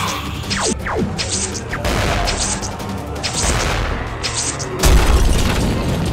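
Action background music with a steady beat, a couple of falling swooshes about a second in, and a heavy low boom hit about five seconds in.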